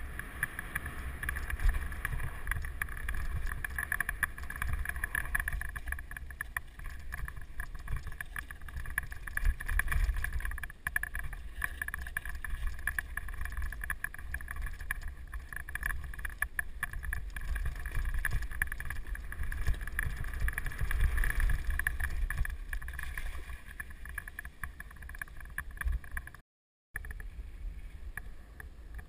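Mountain bike descending a rocky dirt trail at speed, picked up by a helmet camera: steady wind rush on the microphone over the rumble and rattle of the tyres and bike on loose stones. The sound cuts out completely for about half a second near the end.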